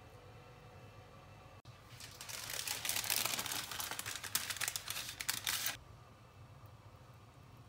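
Baking parchment crinkling and rustling as a hand presses it into a round cake tin to line it. A dense run of crackles starts about two seconds in and cuts off abruptly about four seconds later.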